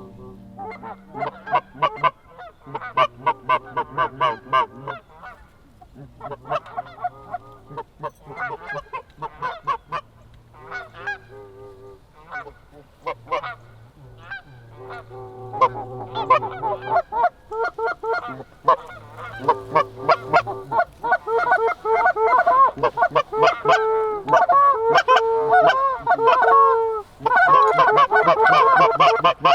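Canada geese honking and clucking, scattered calls at first, then many overlapping calls growing denser and louder over the last third.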